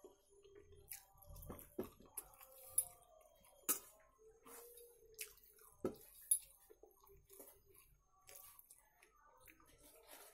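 Faint wet eating sounds: chewing and lip smacks with scattered sharp clicks, and fingers squishing rice and curry against a metal plate.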